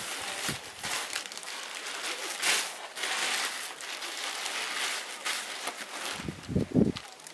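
Rustling and crinkling of a cotton cloth being folded and wrapped around a stack of thin, dry Tiri flatbreads, with two low thumps near the end as the bundle is handled.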